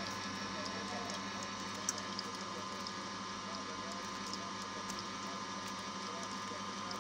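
Small electric screw oil press running steadily while pressing flaxseed: a constant machine hum with scattered small clicks.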